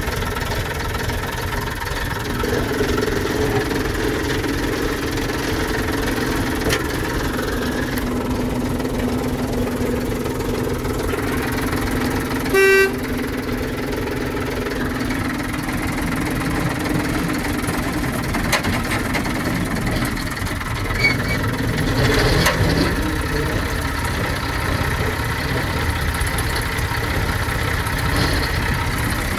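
Simplex narrow-gauge locomotive's engine running steadily as it moves, heard from inside its open cab, its note shifting a little in pitch. About twelve seconds in comes one short horn toot.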